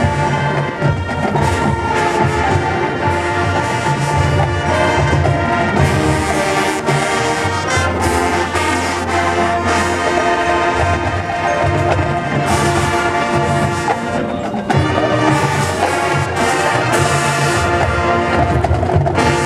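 High school marching band playing live: a full brass section holding loud chords over percussion hits, dipping briefly about fifteen seconds in before coming back louder.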